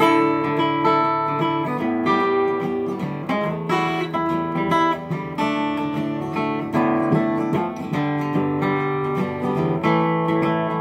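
Acoustic guitar strummed in a steady rhythm without singing, the chords changing every two seconds or so.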